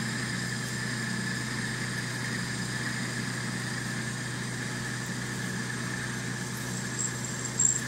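Metal lathe running with its spindle speed just turned up, giving a steady hum while a tool is fed into the spinning metal workpiece. Near the end a high-pitched squeal from the cut starts coming and going.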